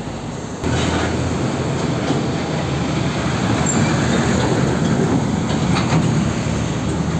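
A heavy diesel tractor unit hauling a shipping container on a tandem-axle trailer passes close by, with steady engine and road noise. The sound gets suddenly louder just over half a second in and stays loud as the truck goes past.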